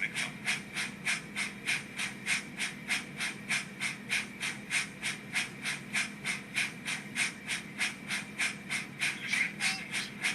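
Sound-fitted Rapido model of the steam locomotive Lion playing its decoder's steam exhaust, a steady chuff at about four beats a second, through the model's small speaker.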